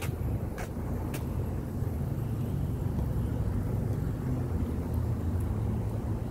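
Low steady rumble of a car driving, engine and road noise, with a few faint clicks in the first second or so.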